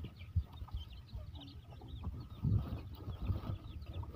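Chicks peeping: many short, faint, high cheeps scattered throughout. Under them are low rustles and bumps from an arm moving about in the wooden coop.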